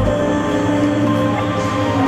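Background music of sustained, held notes. The deep bass drops out just after the start, leaving the higher held tones.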